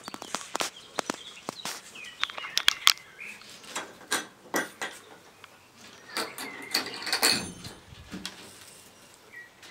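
The latch and wood-framed wire-mesh door of a wooden quail hutch being worked and opened: a run of sharp clicks and knocks, with a rustling scrape about seven seconds in.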